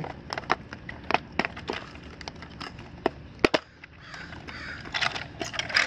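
A rubber tire being stretched over the plastic wheel of a Hayward AquaNaut 200 pool cleaner by hand: scattered clicks and taps, the sharpest about three and a half seconds in, then a rubbing, scuffing sound near the end as the tread is worked onto the wheel.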